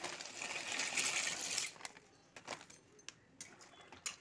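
Dry penne pasta pouring into a metal wok of boiling water, a rushing rattle lasting nearly two seconds. It is followed by a few separate clicks of a spoon stirring against the pan.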